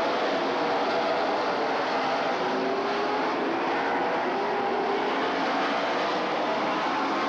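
A pack of late-model stock cars racing at speed, their V8 engines running together in a steady, dense drone, with engine pitch rising and falling as cars go by.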